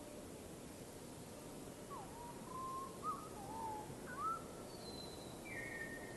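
A bird calling: a string of short, bending whistled notes starts about two seconds in, then higher level notes near the end, over a steady background hiss.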